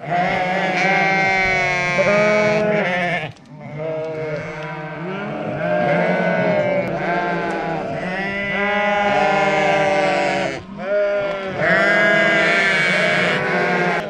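A flock of sheep bleating, many calls overlapping almost without pause, with two brief lulls, about three seconds in and again near the eleventh second.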